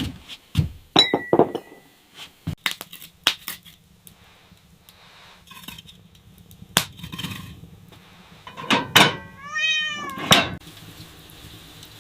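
A cat meows once, a single call that rises and then falls in pitch, about three-quarters of the way in. Sharp knocks and taps come before and around it.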